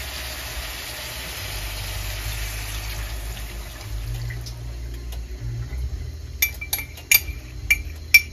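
Crab cooking in sauce in a pan, with a frying hiss that fades over the first few seconds. Then from about six seconds a quick run of sharp, ringing metal clinks: a utensil knocking against the pot.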